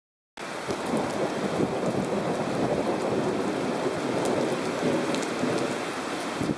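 Heavy thunderstorm rain pouring down, a steady dense rushing hiss that starts abruptly just after the beginning.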